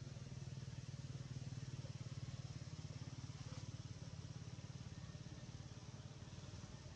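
A small engine running steadily with a fast, even low throb, a little louder in the first few seconds.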